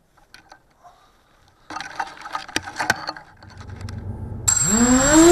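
Soft clicks and rustles, then about four and a half seconds in the Emax Nighthawk Pro quadcopter's brushless motors spin up with a sudden whine that rises in pitch and levels off into a steady tone.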